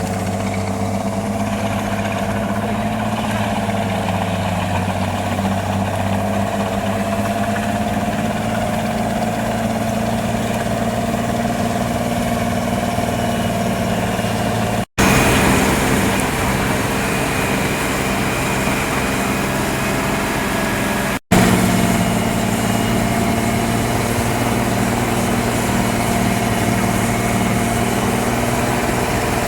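A large engine running steadily at constant speed, with two abrupt cuts about halfway through and about two-thirds through.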